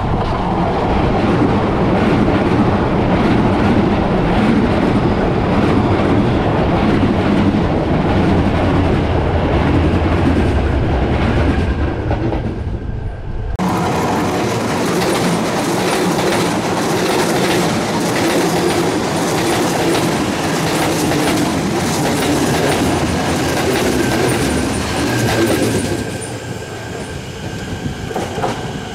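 Electric commuter trains running on a curve of railway track: a steady rumble of wheels with clickety-clack over the rails. About halfway through, the sound changes abruptly and the deep rumble drops away, leaving a lighter running noise.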